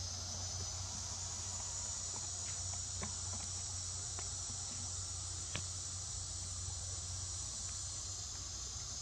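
Steady high-pitched insect chorus, with a few faint clicks about three, four and five and a half seconds in.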